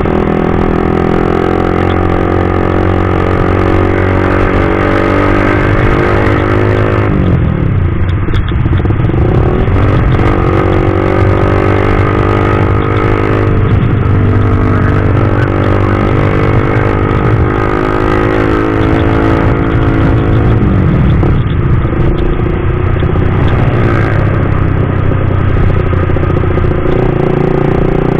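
Suzuki GSX-R150 single-cylinder engine through a CLDX Monster aftermarket exhaust, heard from the saddle while riding. The exhaust note climbs in pitch as the bike accelerates and drops sharply at upshifts, once about a quarter of the way in and again about three quarters in.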